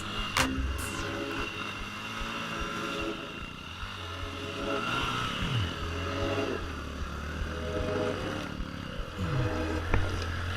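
Trail motorcycle engine running and revving unevenly, the revs dropping away a few times, with a couple of sharp knocks at the start.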